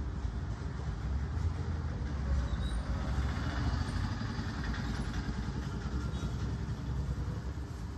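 A steady low mechanical rumble, like an engine running, throughout. Rustling of printed cotton fabric being unfolded and handled around the middle.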